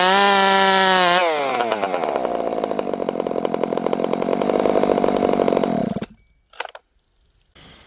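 Dolmar 7300 two-stroke chainsaw, running through a small open pipe in place of the stock muffler. It is held at full revs for about a second, drops back to idle, idles for about four seconds, then is switched off and cuts out suddenly.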